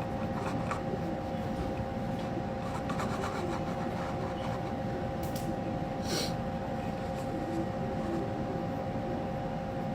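Steady background hum with two constant tones, broken by a couple of short clicks about five and six seconds in.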